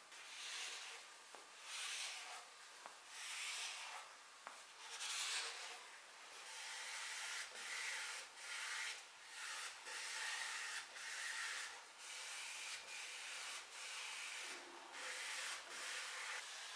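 A cloth pad rubbed along the black-painted spindles of a rocking chair, wiping in repeated strokes about one a second.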